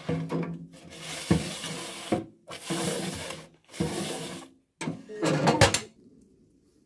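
A metal baking tray being pushed into a steel wood-stove oven, scraping over the oven floor in several separate pushes, with a louder grating scrape about five seconds in.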